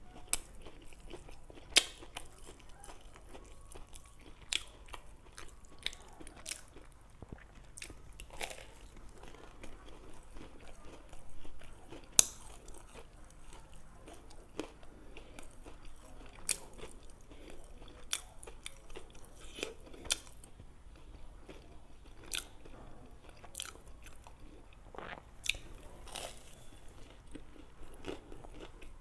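A person eating homemade donuts close to the microphone: biting and chewing, with irregular sharp mouth clicks and smacks every second or two.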